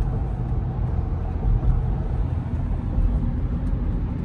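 Steady low rumble of a car, road and engine noise.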